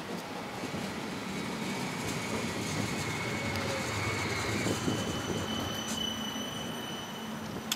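CAF Urbos electric tram rolling slowly past at close range into the stop: a rumble of wheels on rail with a thin high-pitched whine that steps up to a higher tone about five seconds in. A sharp click at the very end.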